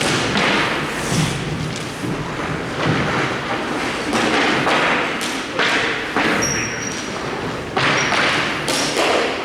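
Irregular thuds and knocks of a ball hockey game in play, sticks and ball striking about once a second, with a short high-pitched tone about six and a half seconds in.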